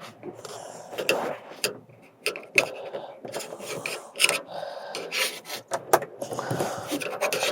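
A flat-blade screwdriver scraping and prying under the edge of a Toyota Sequoia tailgate's plastic inner trim panel, with irregular sharp clicks and snaps as the panel is worked loose.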